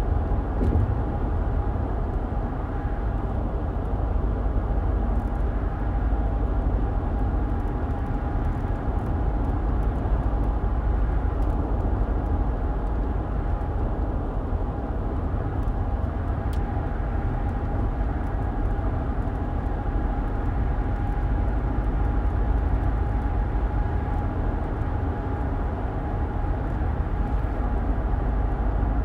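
Car driving along steadily: a continuous low rumble of road and engine noise with a faint thin tone held above it.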